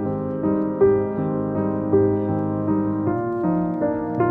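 Background piano music: single notes struck at a slow, even pace, with a stronger accent about once a second.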